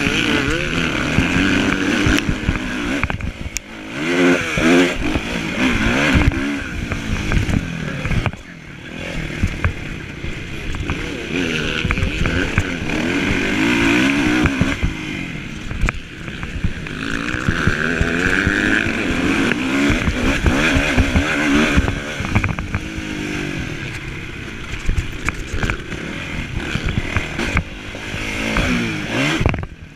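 Kawasaki motocross bike's engine heard from on board, revving up and falling back again and again as the rider works the throttle and gears around the dirt track, with wind rushing over the microphone.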